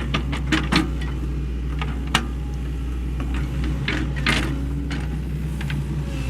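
Sany SY75C excavator's diesel engine running steadily, with sharp knocks and clanks now and then: several in the first second, then about two and four seconds in.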